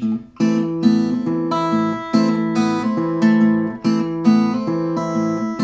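Steel-string acoustic guitar strummed in a steady rhythm on a held chord, about three strokes a second, with the twangy, almost percussive attack of steel strings.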